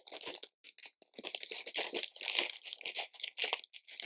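Hands rummaging through loose LEGO pieces while searching for one brick: a dense run of small plastic clicks and rattles, coming in clusters with short pauses.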